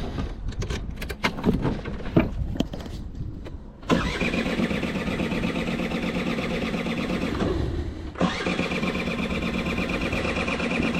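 An old van's engine is started: a few seconds of knocks and clicks, then the engine catches about four seconds in and runs steadily. It cuts out briefly near eight seconds, then runs again.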